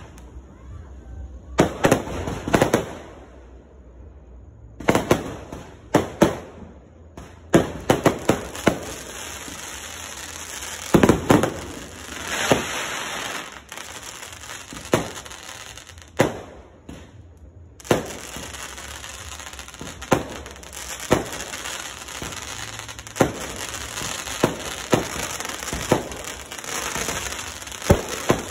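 Aerial fireworks launching and bursting in a run of sharp, irregular bangs, with crackling between them that becomes dense and continuous in the second half.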